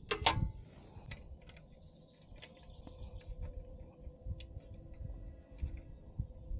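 Hand work on parts and tools: two sharp clicks, then scattered light ticks and taps, with a faint steady hum setting in partway through.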